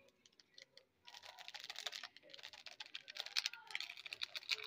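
Rapid, dense crackling from the layered biryani pot, starting about a second in, as oil goes onto the rice and sizzles.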